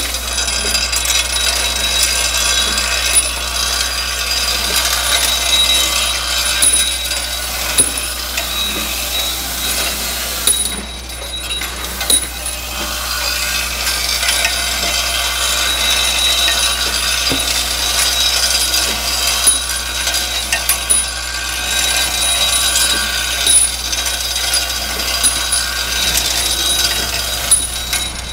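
Bolt feeder with a reciprocating ram elevator and straight-line vibratory orientor running: steel bolts clatter and tick continuously against the steel chute and track, over a steady low hum. The clatter briefly drops away about eleven seconds in.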